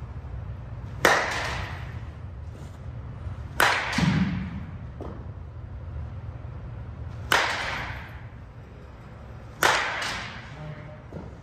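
Composite slowpitch softball bat (2024 Monsta APS, 11-inch barrel) hitting pitched softballs: four sharp cracks two to four seconds apart, each ringing out in the large cage. A softer thud follows just after the second hit.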